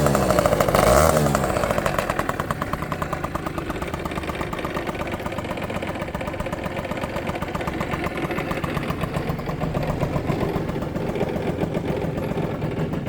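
Adiva Hyper 5 engine revved briefly at the start, then dropping back to a steady, evenly pulsing idle while it is checked for abnormal noise.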